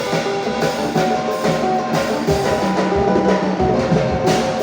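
Live pagode samba band playing an instrumental passage: cavaquinho with samba percussion keeping a steady beat.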